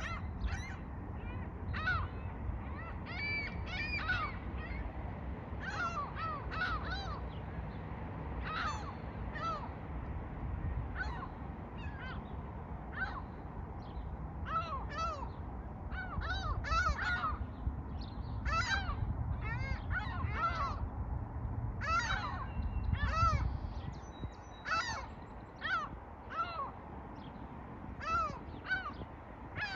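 Many birds calling over and over, short harsh calls that often overlap, as from a flock, with a steady low rumble underneath.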